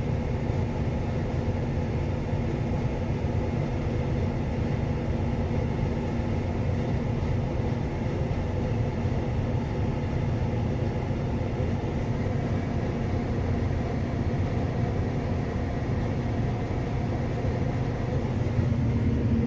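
Claas Lexion 650 combine harvester running steadily while unloading barley through its unloading auger into a grain bin.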